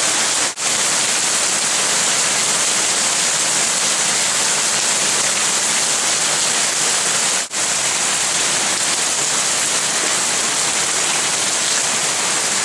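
Hail mixed with heavy rain pelting down, a dense steady hiss of countless impacts that drops out briefly twice.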